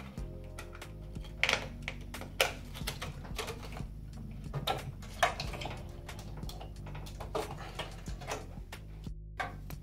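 Cable connectors being worked loose and unplugged from the computer board of an Allen-Bradley PanelView 1200 by hand: a run of irregular small plastic clicks and wire rattles.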